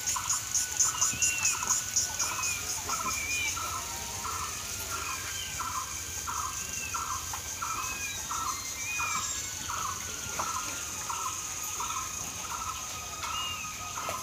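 Outdoor rural ambience of birds and insects. A call repeats about twice a second without a break, over a high pulsing insect drone that is loudest in the first few seconds. Short chirping bird notes come every second or two.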